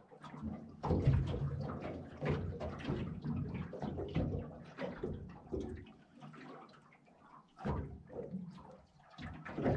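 Water lapping and slapping irregularly against the hull of a small fishing boat, with a quieter lull a little past the middle.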